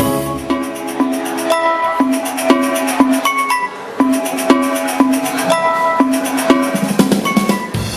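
Music with percussion and struck, ringing pitched notes in a steady rhythm.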